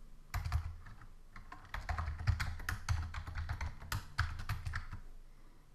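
Typing on a computer keyboard: an irregular run of key clicks, thickest from about two to four and a half seconds in.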